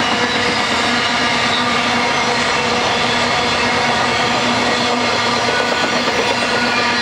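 BNSF intermodal freight train of semi-trailers on flatcars rolling past at trackside: a steady, loud rumble and clatter of wheels on rail, with a faint steady whine over it.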